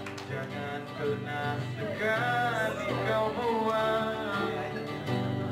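Acoustic guitar playing chords under a solo singing voice, a live acoustic song performance in a large hall, the voice holding and bending long notes.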